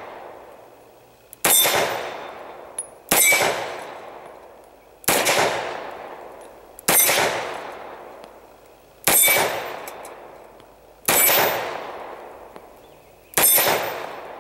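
Polish-made Tokarev pistol in 7.62x25mm firing slow single shots: seven shots about two seconds apart, each echoing and dying away before the next.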